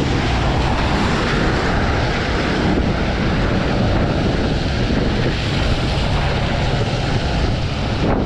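Steady wind buffeting the microphone of a camera on a moving bicycle, with the hiss of rain and bicycle tyres on a wet, flooded road during a typhoon.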